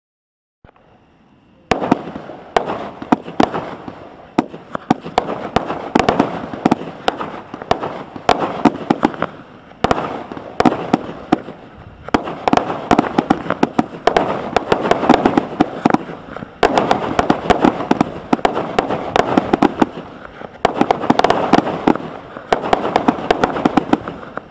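Standard Fireworks Blue Thunder 56-shot cake firing: after a short faint hiss, a rapid, continuous string of launch thumps and bursting cracks over a steady crackle, with brief lulls about ten and twenty seconds in.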